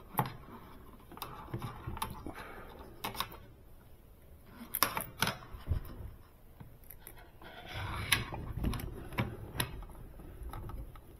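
Scattered sharp clicks and taps of small metal hardware and tools being handled, as a nut is worked onto the ground-wire fastening by hand.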